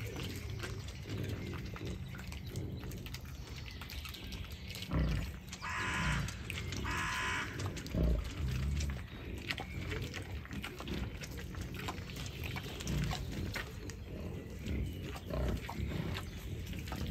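Wild boar rooting through soil with its snout, grunting and snuffling low and steadily, with many small clicks and scrapes of grit being pushed about. Two short, higher-pitched sounds come about six and seven seconds in.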